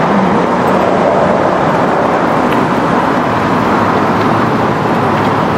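Steady rushing noise of a car on the move, tyres and engine running evenly with no change in level.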